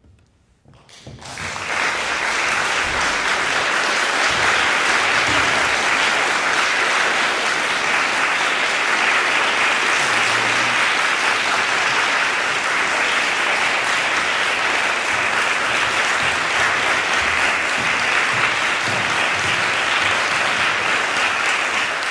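Audience applauding in a concert hall, the clapping breaking out about a second in after a brief hush and then holding steady.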